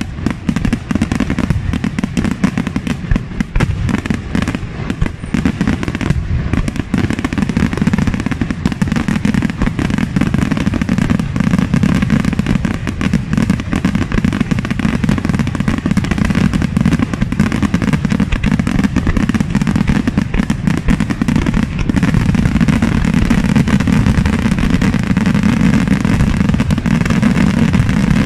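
Aerial fireworks shells bursting in a dense, continuous barrage of bangs. The barrage grows louder about two-thirds of the way through.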